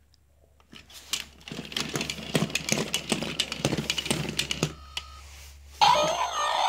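Tekno robotic Dalmatian toy: rapid clicking and rattling of its small plastic gear motors as its legs and body move, then a short beep and, near the end, loud warbling electronic sound effects from its speaker.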